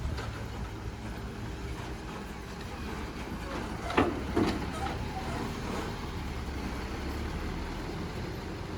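A road-rail crane truck's engine running steadily, with two sharp metallic knocks about half a second apart near the middle.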